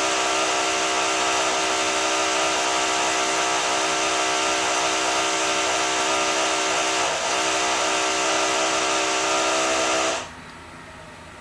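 High-pitched power drill running steadily at full speed, a loud whine over a hiss, then cutting off suddenly about ten seconds in.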